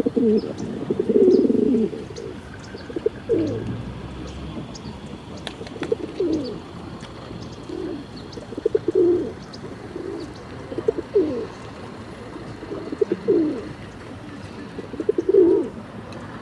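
Pigeon cooing, a low repeated call coming about every two seconds, over a steady background hum.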